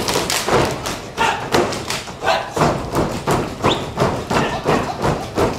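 Dancers' boots stamping on a wooden stage and hands slapping legs and boots in a Hungarian Roma men's dance, a steady beat of a little over two strokes a second, with a few short vocal sounds over it.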